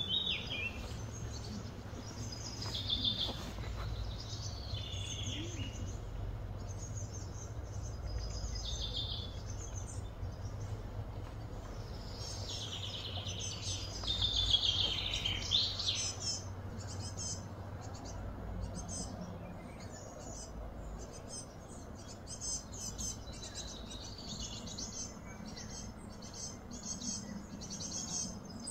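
Birds chirping and calling outdoors, in repeated short phrases that are loudest about halfway through and give way to quicker, rapid chirping in the later part, over a steady low rumble of background noise.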